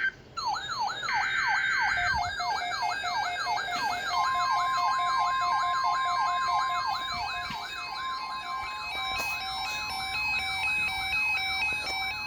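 An electronic siren wailing up and down rapidly over and over, layered with emergency alert tones. A steady single-pitch alert tone joins about four seconds in and holds under the siren.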